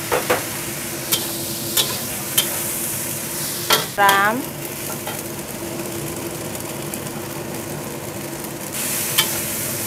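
Food sizzling in oil in a wok while a metal spatula stirs fusilli pasta with chicken and mushrooms, with sharp clicks of the spatula against the wok in the first few seconds. Near the end the sizzle turns louder and hissier as dark sauce is poured into the hot wok.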